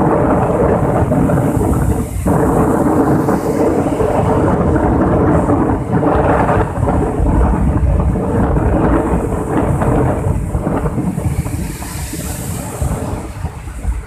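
Rough sea surf breaking and washing over the shore in a continuous foaming rush with a deep rumble, easing slightly near the end.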